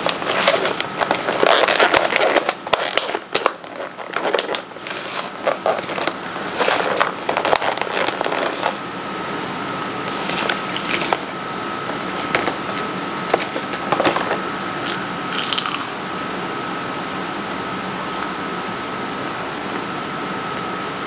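Clear plastic takeout clamshell being pressed shut and handled, with loud crackling and clicking for the first nine seconds or so. After that come softer, scattered clicks over a steady faint high-pitched whine.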